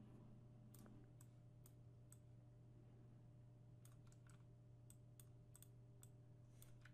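Near silence with faint computer mouse clicks scattered throughout, most of them in the second half, over a low steady electrical hum.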